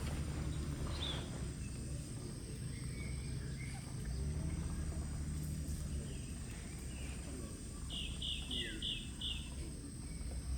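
Outdoor ambience with a steady low rumble and a thin steady high whine, broken by short high animal chirps: a few scattered ones, then a quick run of five near the end.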